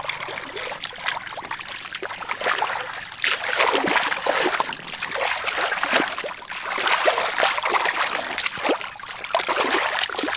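Hands sloshing and squelching through thin, watery mud, an irregular run of wet splashes and drips as they grope for catfish.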